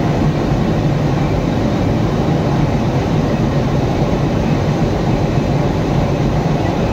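Railway locomotive's diesel engine running steadily at about 430 RPM, not throttled up: a loud, even, low machine sound with no change.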